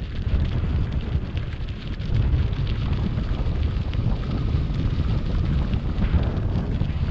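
Wind buffeting an action camera's microphone while riding, a heavy rumble, over the crunch and rattle of gravel-bike tyres rolling on a loose dirt road.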